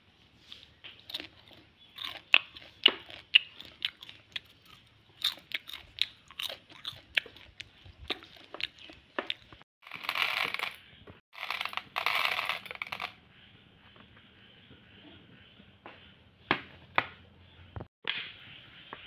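Crisp crunching and crackling of popped popcorn for the first several seconds. Then dried popcorn kernels are poured into a steel bowl, rattling in two loud rushes. A few knocks come near the end.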